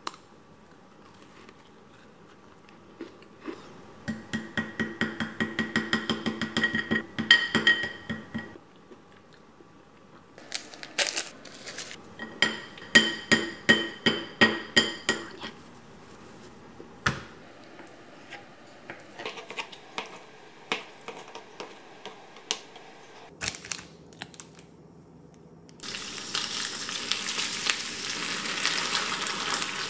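Two runs of rapid, crisp crackling, fitting bites into a crunchy caramelised brûlée tart. Then a metal spoon scrapes and clicks as it tears a block of konnyaku on a plastic cutting board. Near the end, food suddenly starts sizzling in a frying pan.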